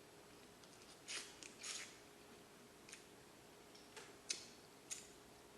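Scattered sharp clicks and crackles of someone eating lobster and snow crab: about six short snaps spread over a quiet background.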